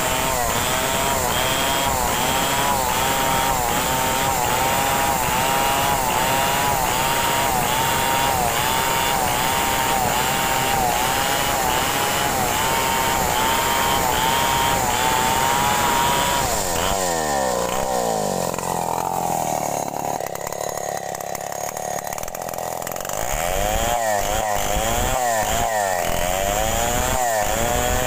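Stihl two-stroke chainsaw running at full throttle while ripping a log lengthwise, its pitch wavering as the chain bites into the wood. About 17 seconds in the revs fall away to idle for several seconds, then it revs back up and cuts again near the end.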